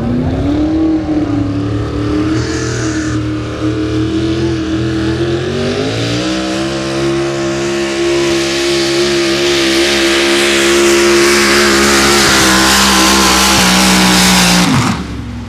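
Modified square-body Chevrolet pickup pull truck's engine at full throttle, pulling a weight-transfer sled down the track. The engine note climbs about six seconds in, holds high and steady, then falls away sharply near the end as the pull ends.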